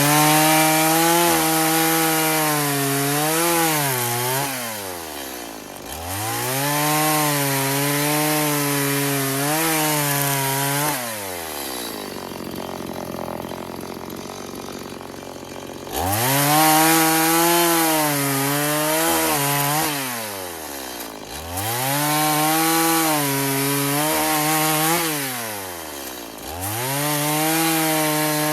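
Stihl MS 180 two-stroke chainsaw running at high revs, the engine note dropping sharply and climbing back up several times. There is a quieter, hazier stretch in the middle.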